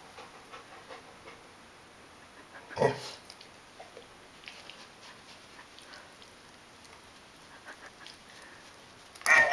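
Mostly quiet, with one short low huff about three seconds in. Near the end a talking babble ball toy, touched by a chocolate Labrador's nose, sets off a loud sound.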